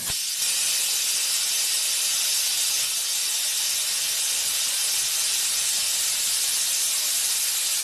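A steady, loud hiss that cuts off suddenly at the end.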